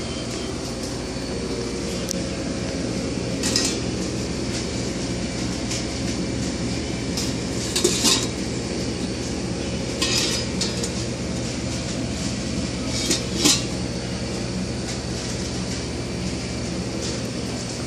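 Stainless steel soup-kettle lids clinking metal on metal as they are lifted and set back on the wells: a handful of short sharp clinks, the loudest a double clink about eight seconds in, over a steady hum.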